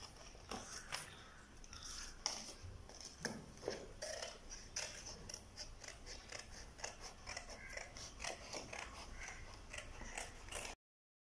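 Scissors snipping through a sheet of thin card, a run of quick irregular cuts, with the sound cutting off suddenly near the end.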